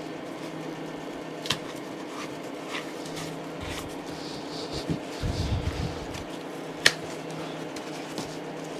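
Hands working the tape-wrapped rim of an old steering wheel: faint rustling and scraping with two sharp clicks, one about a second and a half in and a louder one near seven seconds, over a steady room hum.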